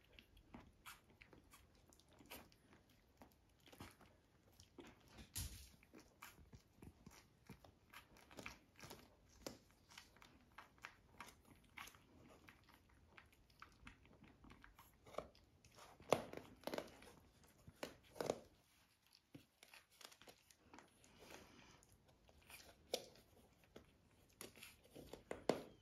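Puppies suckling from their mother: faint, irregular clicking and mouth noises, with a few louder clicks now and then.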